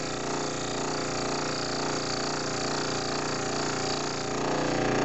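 Scroll saw running with a steady hum while its blade cuts a short test slit into the edge of a thick hardwood block, getting a little louder near the end.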